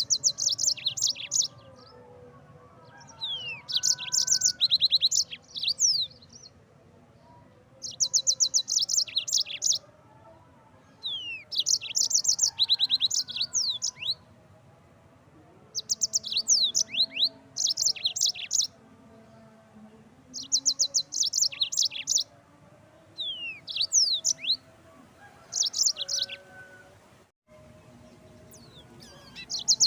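Yellow-fronted canary (Mozambique canary) singing. It gives phrase after phrase of rapid high trilled notes mixed with quick downslurred whistles, each phrase a second or two long with short pauses between.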